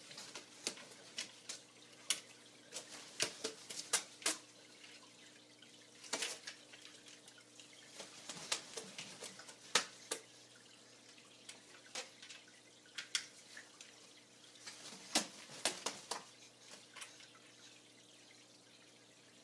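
Water dripping and spattering from a wet blue-and-gold macaw as it flaps and shakes out its feathers on an aquarium's rim: irregular light drips and ticks, with a few brief flurries. A faint steady hum runs underneath.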